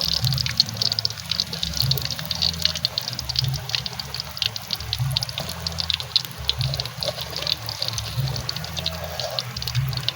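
Hot cooking oil sizzling and crackling with many sharp pops, as leaves fry in it. Underneath runs a low beat about once a second.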